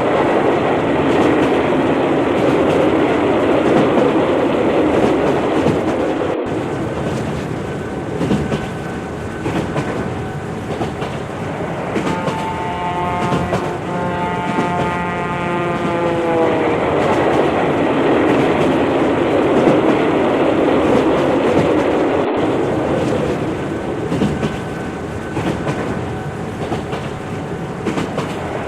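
Indian Railways train running past with a steady rumble and wheel clatter. About halfway through, its horn sounds for several seconds and drops in pitch as it goes by.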